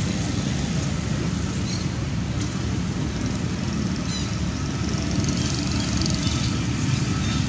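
Steady low rumble of wind buffeting the microphone, with a few brief faint high chirps.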